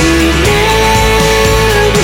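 Background music: a rock-style track with guitar over a steady bass, its melody held in long notes that slide from one to the next.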